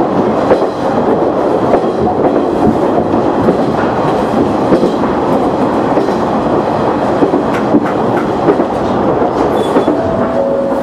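KiHa 100 diesel railcar running along the line, heard from behind the driver's cab: a steady rumble of engine and wheels on rail, with the occasional clickety-clack of the wheels over rail joints.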